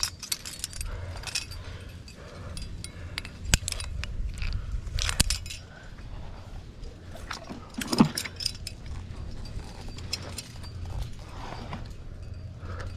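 Aluminium carabiners and quickdraws on a climber's harness clinking and jangling against each other as he climbs, with a few sharper clinks, the loudest about eight seconds in.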